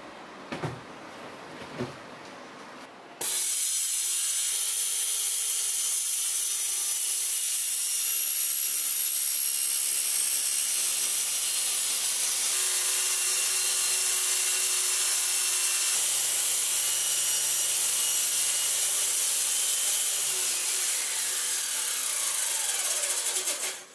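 Circular saw mounted under a homemade table saw running as its blade is raised up through the sled's board, cutting the kerf. It starts suddenly about three seconds in as a loud, steady, high whine and runs for about 20 s, its pitch sinking over the last few seconds before it stops.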